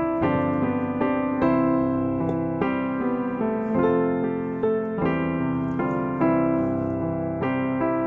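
Background piano music, with notes and chords changing about once or twice a second.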